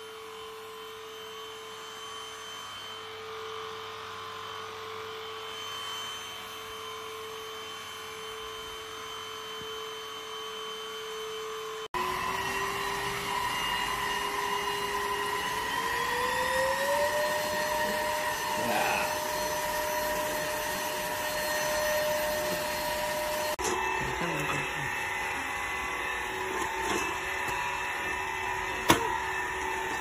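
DIBEA D18 cordless stick vacuum cleaner running, a steady high motor whine over the rush of suction. Partway through, the whine rises in pitch, and the sound changes abruptly twice.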